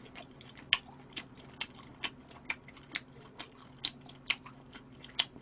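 Close-miked chewing of a mouthful of smoked duck meat, with wet mouth clicks coming evenly about twice a second.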